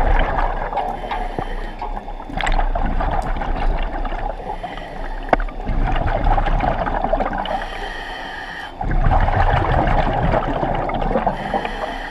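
Scuba diver's regulator breathing underwater: a short hissing inhalation followed by a longer bubbling rush of exhaled air, repeating about every three to four seconds.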